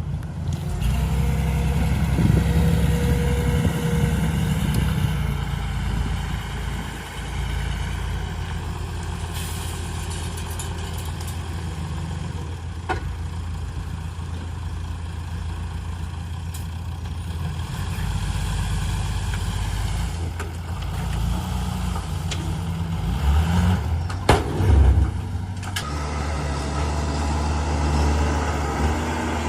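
Heavy diesel engine running steadily, with a few sharp knocks about 13 and 24 seconds in.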